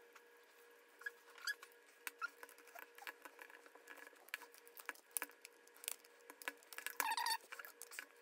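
Faint, irregular clicks and taps of metal needle-nose pliers against a nut and the hard plastic rim of a Cuban yo-yo handline spool while the nut is held, with a short, denser run of scraping clicks near the end.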